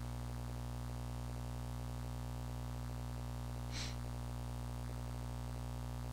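Steady low electrical mains hum in the recording, with a faint short hiss about four seconds in.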